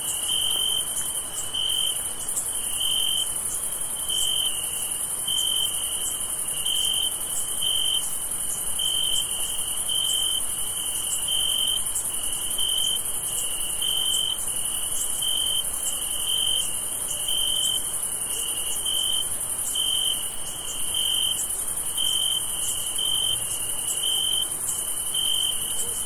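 Night chorus of crickets: one chirps in short, evenly repeated pulses of a single high tone, over a steady, very high-pitched trill from more insects.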